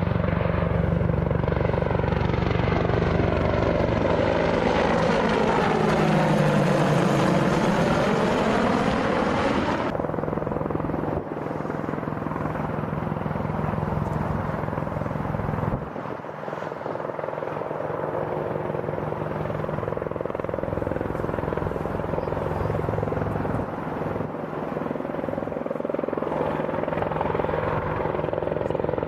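Apache attack helicopter's rotor and turbine engines running as it approaches and hovers. For about the first ten seconds it is louder, with a hissing, sweeping sound of something passing, and this cuts off suddenly to a steadier, lower hum.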